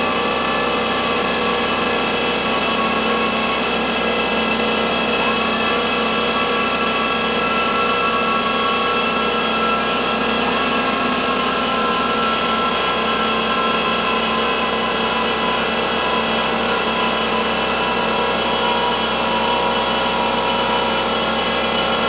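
Pneumatic palm sander with 180-grit paper running steadily against the aluminium rim of a BMW alloy wheel, grinding off curb rash. It makes a constant whine over the hiss of sanding, with its pitch dipping slightly now and then as the pad is pressed.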